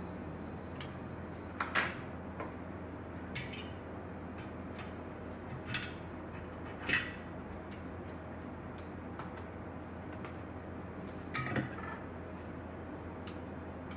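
Scattered light clicks and scrapes of small metal repair tools on an iPhone logic board, five or so louder than the rest, over a steady low hum.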